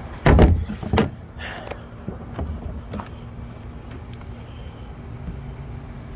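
Two loud thumps, about a third of a second and a second in, then a few lighter knocks and clicks over a steady low rumble.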